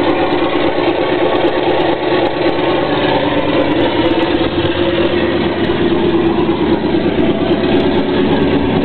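Radial aircraft engine running steadily on a display stand, a loud continuous rumble of rapid firing pulses; its pitch sags slightly near the end.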